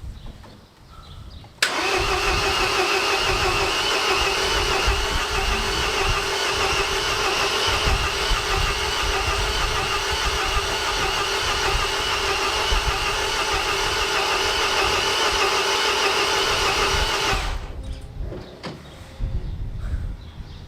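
Starter motor cranking the MINI R56's 1.6 HDi DV6 diesel engine steadily for about sixteen seconds without it firing, the sign of a no-start. The cranking begins abruptly about two seconds in and stops near the end.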